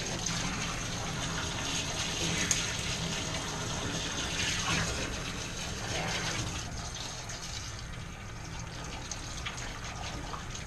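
Water from a grooming-tub hose running over a wet dog's coat, a steady spray with splashing into the stainless steel tub, easing off a few seconds before the end.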